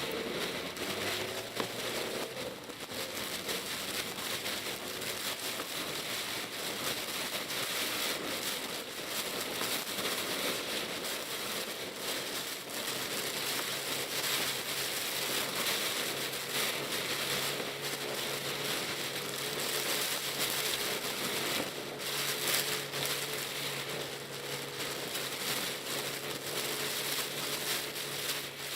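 Typhoon rain pattering hard on a Pajero Mini's roof and windscreen, heard inside the cabin as a dense crackling hiss. Underneath, the kei car's small engine hums; its note drops in the first couple of seconds and holds steady from about halfway on.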